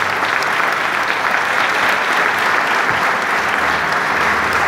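Audience applauding steadily, with one person clapping close by.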